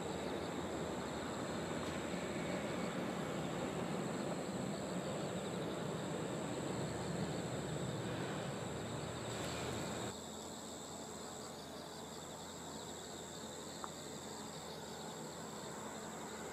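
Insects chirring steadily in a continuous high-pitched trill, over a low, even background rumble that drops off suddenly about ten seconds in.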